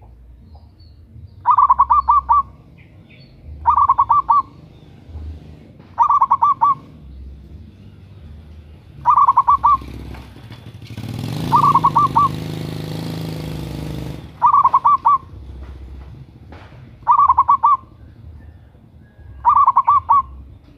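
Zebra dove (perkutut) calling over and over: short phrases of rapid, stuttering coo notes, eight of them, about every two and a half seconds. Midway a passing engine hums up and fades under the calls.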